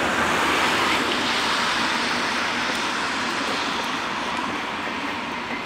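Passenger coaches of a Eurocity rolling past behind a departing Class 115 electric locomotive: steady wheel-on-rail noise, loudest about a second in and slowly fading as the train pulls away.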